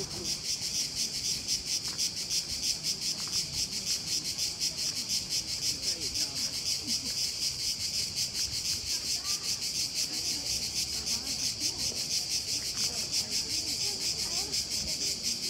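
Cicadas chorusing: a steady, high buzz that pulses rapidly without a break.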